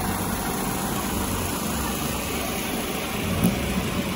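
Steady street noise of vehicle engines and traffic, with a single sharp click about three and a half seconds in.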